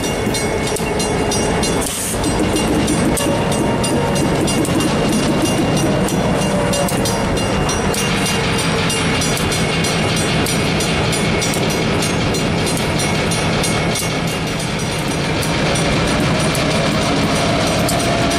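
EMD diesel switcher (SW1500) and GP38-2 road locomotive running as they pass close by at low speed, engine drone with wheel noise and clicking over the rails.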